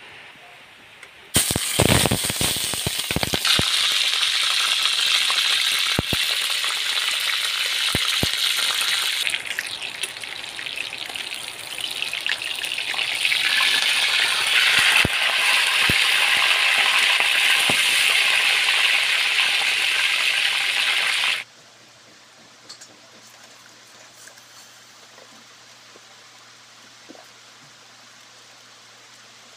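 Pork belly sizzling in hot oil in a wok, a loud, even hiss that starts suddenly a little over a second in, with sharp pops and knocks in the first few seconds. The sizzle eases for a couple of seconds about halfway, then stops abruptly about 21 seconds in, leaving only a faint low hum.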